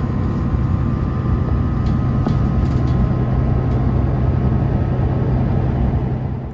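Steady engine drone and road noise heard inside a moving single-decker bus, with a few faint rattles.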